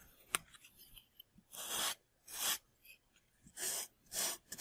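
Sandpaper rubbing over the edge of a foam model aircraft in four slow strokes, each about half a second long. A single sharp click comes about a third of a second in.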